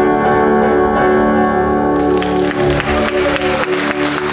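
A final chord on a Yamaha electronic keyboard ringing out, then audience applause breaking in about two seconds in as the song ends.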